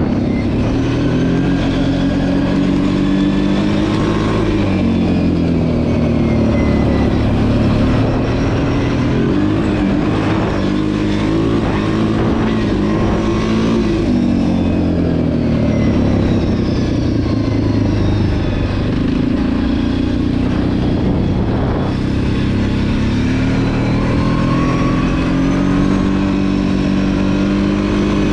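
Kawasaki KFX 700 quad's V-twin engine being ridden hard, revving up and easing off over and over, its pitch rising under acceleration and dropping back between pulls.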